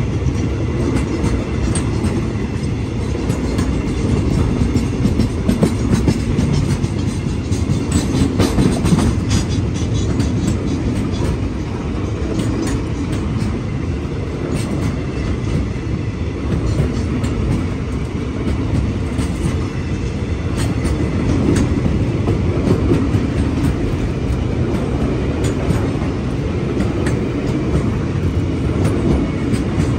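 Empty railway tank wagons of a freight train rolling past: a steady low rumble of steel wheels on the rail, broken by scattered sharp clicks and clacks from the wheels.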